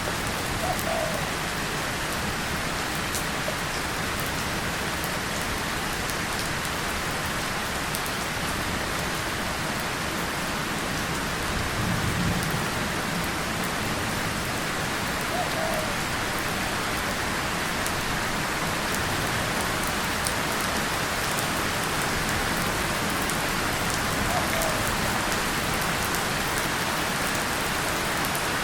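Steady rain falling on a tin surface and leaves, with a brief low rumble of distant thunder about twelve seconds in.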